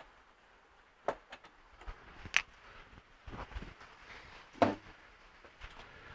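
A few separate sharp clicks and knocks, the loudest about two and a half seconds and four and a half seconds in: hand work with tools and metal fittings, such as setting nutserts into a rack.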